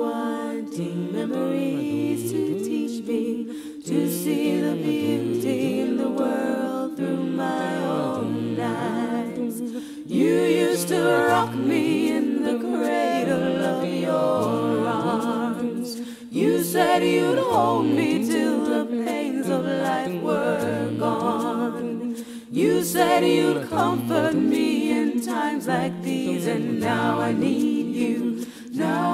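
Music soundtrack of several voices singing a cappella in close harmony, with a low part repeating about once a second beneath them.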